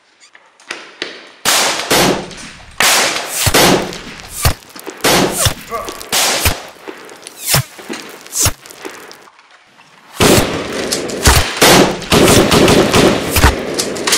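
Gunfire sound effects of a shootout: a string of single shots, then rapid automatic fire from about ten seconds in.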